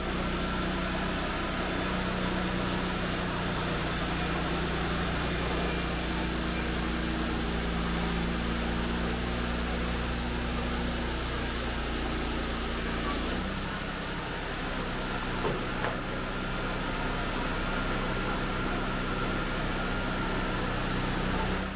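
WoodMizer LT35 band sawmill running steadily as it saws oak logs: an engine hum with a hiss of cutting over it. The low engine tone changes about two-thirds of the way through.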